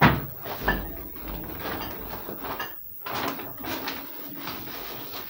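Plastic shopping bag rustling and crinkling as things are rummaged out of it, with a sharp knock at the start and another flurry of handling noise about three seconds in.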